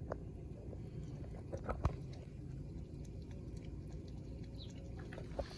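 A kitten lapping water from a plastic bucket, heard as a few soft wet clicks, the sharpest a little under two seconds in, over a steady low background rumble.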